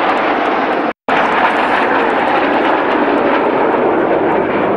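Jet engine noise from a formation of BAE Hawk T1 jets flying past: a steady loud rushing roar, with a sudden brief gap about a second in.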